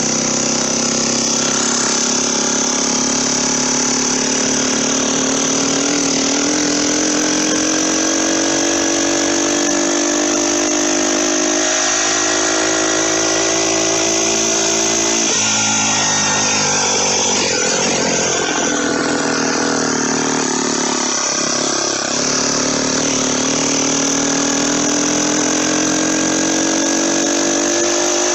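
Turbocharged motorized bicycle engine pulling under load. Its pitch climbs slowly, falls sharply about halfway through, then climbs again near the end.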